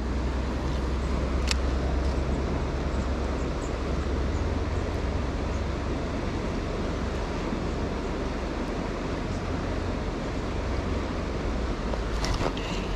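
Steady wind buffeting the camera microphone as a low rumble, over the rush of a flowing river, with a couple of faint clicks.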